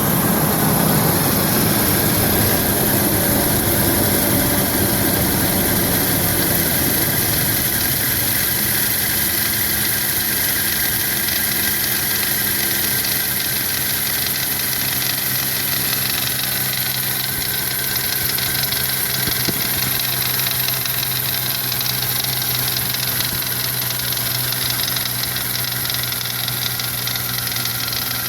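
1995 Toyota Land Cruiser FZJ80's 1FZ-FE 4.5-litre straight-six idling steadily with an engine knock, a little louder for the first several seconds, under a steady high hiss.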